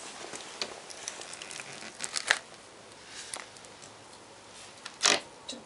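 Rollerski tip on a ski pole tapping and scraping on a concrete floor: scattered sharp clicks and scratches, with louder strikes about two seconds in and about five seconds in.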